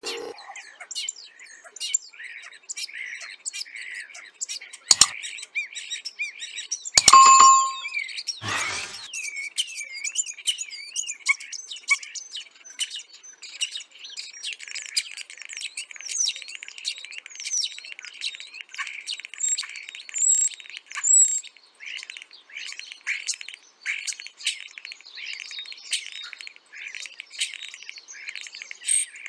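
Common starling song: a continuous jumble of chirps, trills, clicks and whistles. It includes sharp clicks near 5 and 7 seconds, a louder call just after 7 seconds, and a wavering whistle around 9 to 11 seconds.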